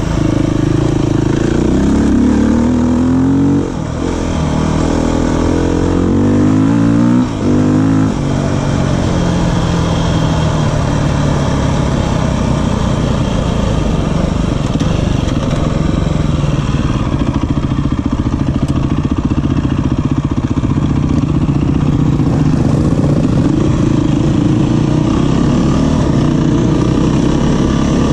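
Beta 350 enduro motorcycle's four-stroke single-cylinder engine accelerating up through the gears, its pitch rising and dropping back at shifts about 4 and 8 seconds in, then running steadily at cruising speed.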